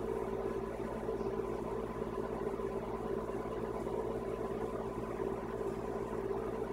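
A steady mechanical hum that does not change.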